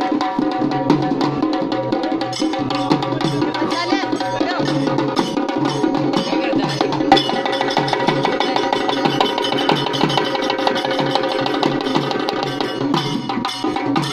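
Live drum music: a drum beaten in a fast, even rhythm, with steady held melody notes sounding alongside it.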